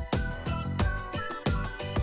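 Background music with a steady beat and a gliding melody line.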